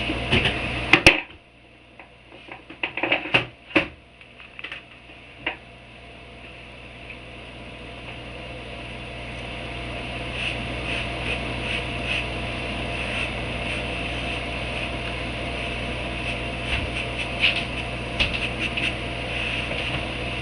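A steady machine hum that slowly grows louder, with a few sharp knocks and clicks in the first few seconds.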